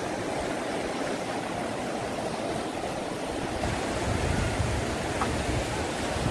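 Fast, shallow rocky river rushing over boulders and stones: a steady rush of water. About halfway through, a low rumble joins in under it.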